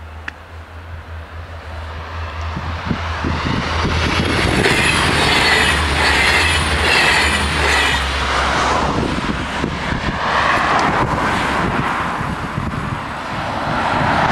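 A regional diesel train passing over a level crossing. It grows louder over the first four seconds, then runs past with steady wheel-and-rail noise, a low engine hum that fades about eight seconds in, and a wavering high squeal from the wheels.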